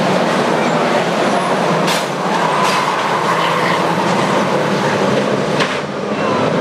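A pack of 2-litre saloon stock cars racing, many engines running together in a steady drone, with two sharp bangs of cars making contact, about two seconds in and again near the end.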